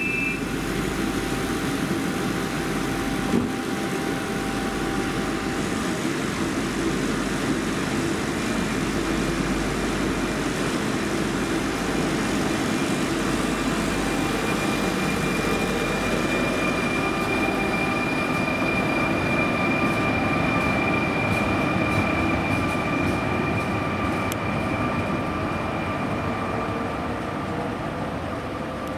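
Fertagus Class 3500 double-deck electric multiple unit pulling out of the station: a brief door-warning beep at the very start, then steady rolling and traction noise with electric whines, one rising slowly in pitch over the second half as the train speeds up.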